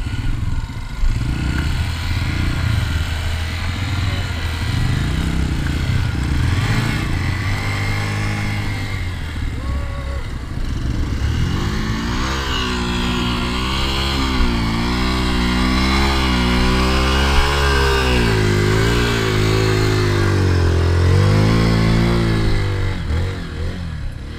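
Hero Xpulse 200 single-cylinder motorcycle engine running under throttle. Its pitch rises and falls in repeated swells through the second half, easing off near the end.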